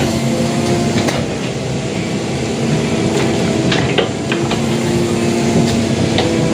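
Hydraulic excavator's diesel engine running steadily under load, with sharp metallic clanks from the bucket and linkage, a few about a second in and several more around four seconds in.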